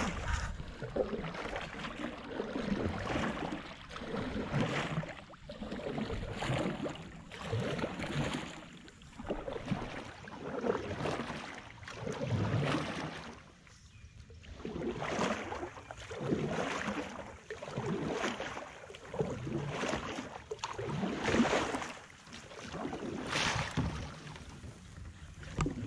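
Canoe paddle strokes: the blades dip and pull through the water with a swishing splash about every one and a half seconds.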